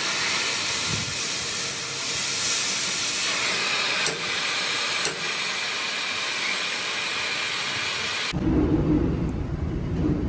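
Gas welding torch flame hissing steadily as it heats a steel camshaft, with a couple of faint ticks midway. About eight seconds in the hiss cuts off abruptly and a low rumble takes over.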